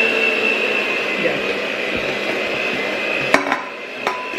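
Electric mixer running with a steady whine, and two sharp knocks about three and four seconds in.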